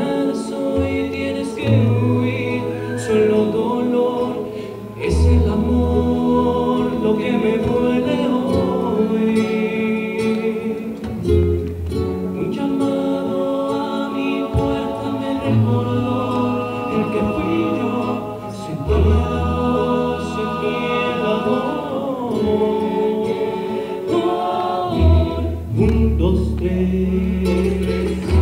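A rondalla, a Mexican ensemble of acoustic guitars with a bass guitar, playing a slow ballad live, with voices singing in harmony over the plucked strings and deep bass notes.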